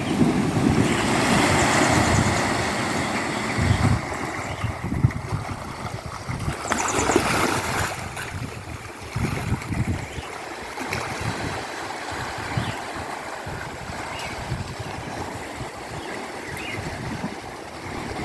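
Sea water washing and splashing, with wind buffeting the microphone. It is louder for the first few seconds and surges again about seven seconds in, then settles to a calmer wash.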